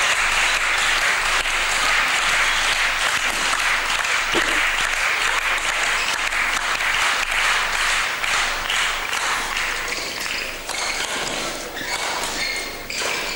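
Crowd applauding, a dense steady clapping that fades over the last few seconds.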